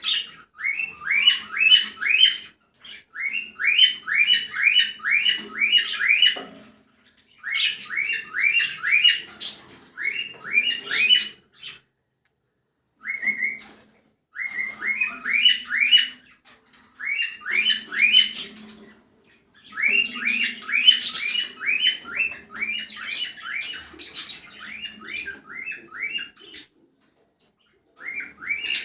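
Cockatiel calling in bouts of quick, repeated rising chirps, several a second, each bout lasting a second or two and broken by short pauses.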